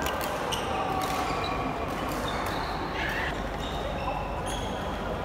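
Badminton rally: court shoes squeaking on the floor in short, high squeals, with the shuttlecock struck by rackets several times.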